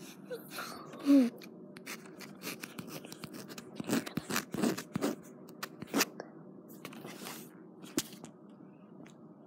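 Handling noise: rustling and scattered clicks and knocks as a phone is moved about and things close to it are handled, with a short pitched sliding squeak or hum about a second in, the loudest moment.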